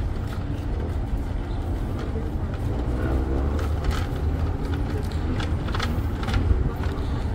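Steady low rumble of car traffic, with faint voices of people passing by about three seconds in.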